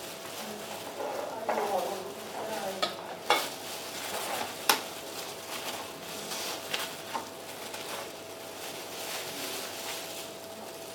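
Wooden chopsticks stirring squid pieces and clinking against glass and ceramic bowls during egg-dipping, with several sharp clinks scattered through, over a faint steady hum.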